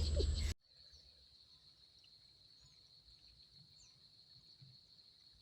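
A voice cuts off suddenly about half a second in, leaving faint outdoor ambience: a steady high-pitched insect trill with a few faint bird chirps over it.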